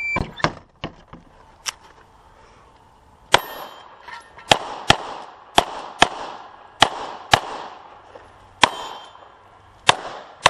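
A short electronic shot-timer beep right at the start. Then a string of pistol shots at a USPSA stage, about nine loud shots from about three seconds in, several fired in quick pairs, each with an echoing tail and a faint ring of struck steel after some of them.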